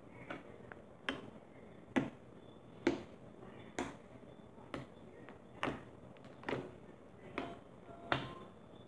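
Slime worked by hand in a container, giving a sharp click or pop about once a second in a steady rhythm, about ten in all.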